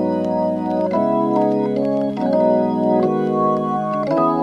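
Background music of sustained organ-like keyboard chords, shifting to a new chord about once a second.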